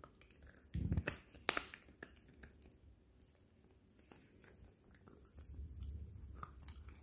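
A small dog gnawing on a bone-shaped chew held in a person's hand: a few sharp clicks of teeth on the chew about a second in, then faint gnawing and handling noise.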